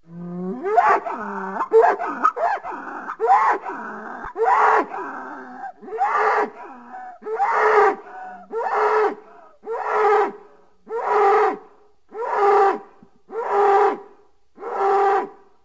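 Cattle calling: a jumble of overlapping calls that bend in pitch, then from about six seconds in a steady run of short, repeated bawls, roughly one a second.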